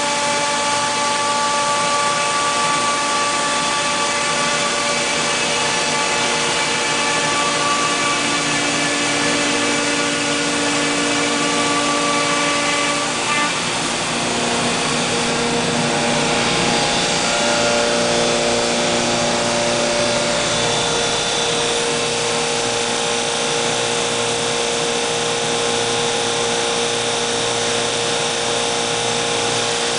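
CNC machining center's router spindle cutting a solid wood door, a steady whine of several tones over a loud hiss. About halfway through the tones change pitch.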